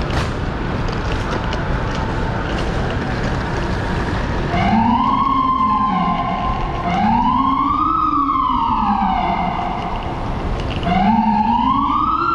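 Emergency vehicle siren sweeping up and down in pitch, three rises and falls of about two seconds each, starting about four and a half seconds in over steady street noise.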